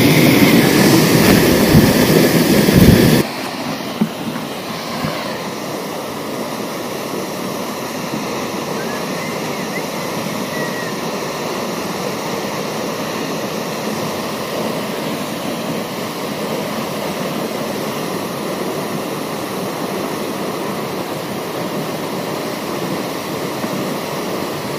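Waterfall rushing as a steady noise, loud and rough for the first three seconds, then cutting suddenly to a quieter, even rush.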